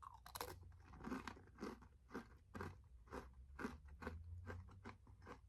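Someone biting and chewing a thin, crisp chocolate Oreo Thins cookie: faint, crisp crunches, two or three a second.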